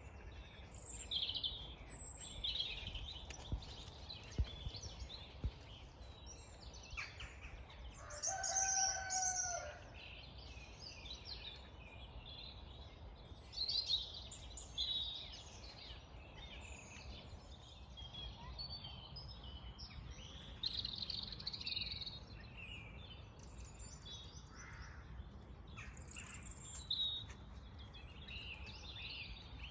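Dawn chorus: many songbirds singing and chirping over one another, with one louder drawn-out call about eight seconds in.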